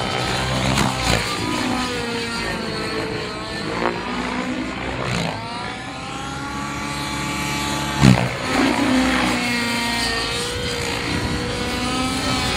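Radio-controlled helicopter flying overhead, its motor and rotor whine rising and falling in pitch again and again as it manoeuvres. A brief loud burst comes about eight seconds in.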